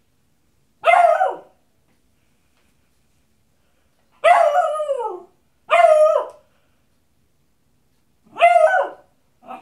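Beagle baying: four loud, drawn-out calls, each dropping in pitch as it ends, and a short fifth one right at the end.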